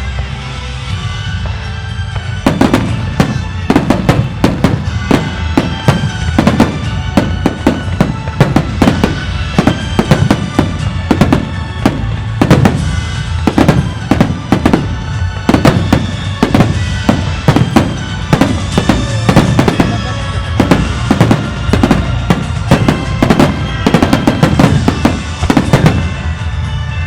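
Aerial firework shells bursting in rapid, dense succession, several bangs a second, with music playing alongside. The bangs thicken about two seconds in and keep coming.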